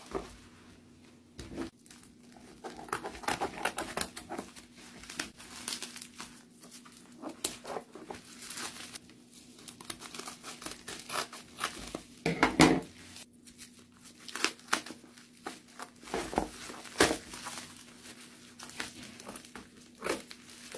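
Bubble wrap and plastic packaging crinkling and rustling in irregular bursts as it is handled and cut open with scissors, loudest about twelve seconds in.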